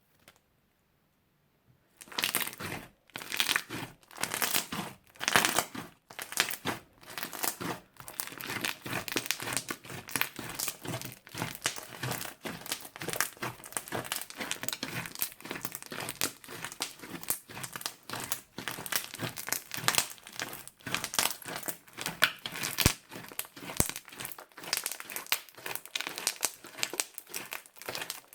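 Crunchy slime being squeezed and kneaded by hand, giving dense rapid crackling and popping; it starts about two seconds in and goes on steadily.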